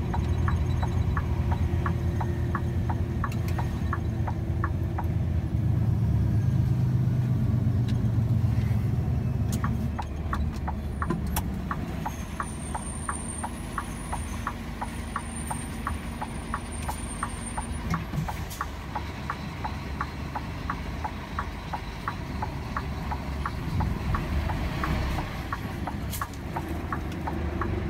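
Vehicle engine running, heavier for about the first ten seconds and then dropping to a quieter idle, with the indicator relay ticking evenly about three times a second throughout.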